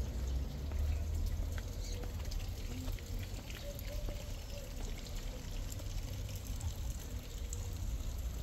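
Water splashing and trickling from a garden fountain, over a steady low rumble.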